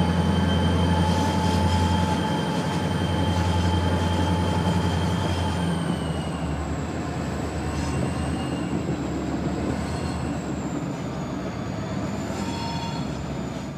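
CN diesel-electric locomotive running with a heavy, steady low engine drone, growing fainter after about six seconds, with a thin steady high whine over it.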